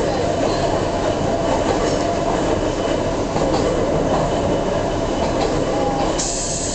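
Interior running noise of the Ohmi Railway Moha 223 electric railcar at steady speed: the hum of its nose-suspended (tsurikake) traction motors and gearing over wheel-on-rail noise. A brief rush of hiss comes in about six seconds in.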